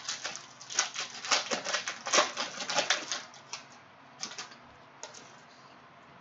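Cellophane wrapper of a Prizm trading-card cello pack crinkling and crackling as it is torn open: a dense run of crackles for about three and a half seconds, then two short crinkles.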